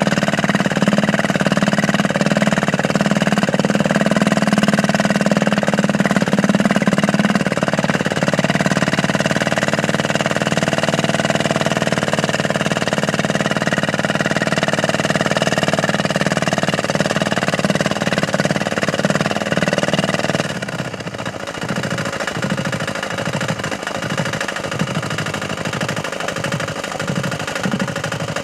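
Small single-cylinder 198 cc air-cooled diesel engine running steadily under load. About two-thirds of the way through it drops to a quieter, uneven pulsing beat.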